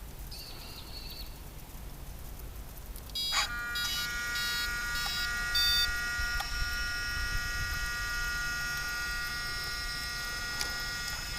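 Power-up of a gas RC truck's radio electronics as the receiver battery is plugged in. A few faint short high beeps, then a click about three seconds in, after which a steady high-pitched electric whine sets in with a run of short beeps over it: the servos humming as they power up and hold position.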